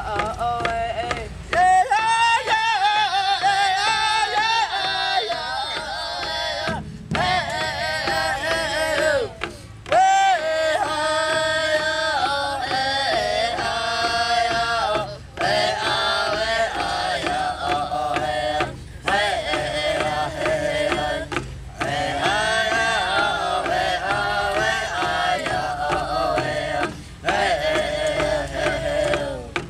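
Powwow drum group singing a grass song together, several voices over the steady beat of sticks striking a large hand drum. The singing breaks off briefly between phrases several times.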